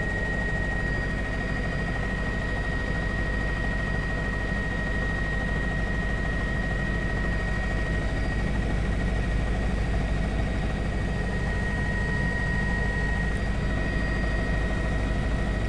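Steady cabin noise of a news helicopter in flight, a constant engine and rotor drone with a thin high whine running through it.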